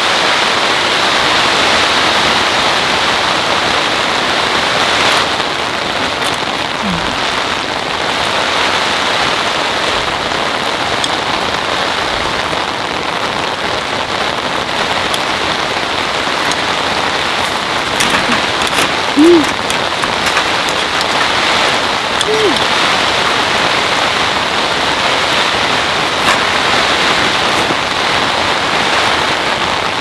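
Heavy rain pouring onto the tent fabric, heard from inside as a steady, dense hiss. A few light clicks come through it, and a short, loud pitched sound comes about two-thirds of the way in.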